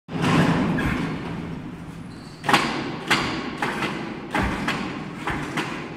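Knocks and thuds from a CNC router gantry being handled as it hangs in lifting slings, over a noisy workshop background. There are a few sharp knocks, the first about two and a half seconds in.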